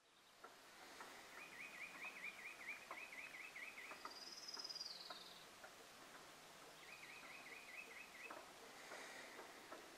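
Faint birdsong over outdoor background hiss: a rapid trill that starts about a second and a half in and comes again shorter about seven seconds in, with a single downward-sliding whistle in between.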